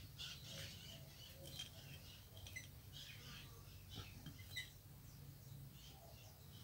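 Near silence: a faint steady low hum with a few scattered, faint short chirps.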